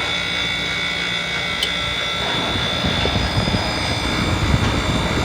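Manitowoc commercial ice machine running with its compressor kicked on: a steady mechanical drone with several constant hum tones. Irregular low thumps join in from about two seconds in.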